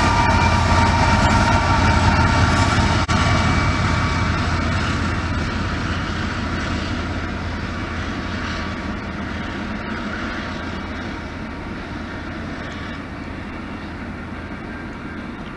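CN diesel freight train passing: locomotive engine and rolling rail cars make a steady heavy rumble, with a few high steady tones that die away within the first few seconds. The sound then fades slowly as the train moves away down the line.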